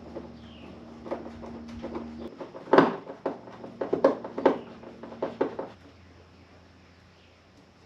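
Irregular knocks and clicks of wooden cabinet parts being handled and fitted, the sharpest knock about three seconds in. A steady low hum underneath stops a couple of seconds in.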